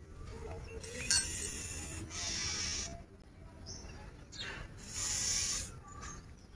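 A bird giving harsh, hissing churr calls in short bursts, the two loudest about two and five seconds in, with a sharp click just after one second. These are the scolding calls of the parent birds disturbed at their nest.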